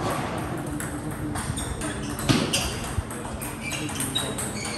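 Table tennis rally: a celluloid ball struck by rubber rackets and bouncing on the table, a string of sharp, irregular clicks, ending by about three seconds in.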